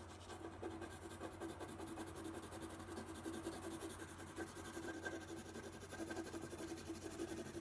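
Colored pencil scratching on paper over a watercolor base coat, in quick short strokes, with a steady low electrical hum beneath.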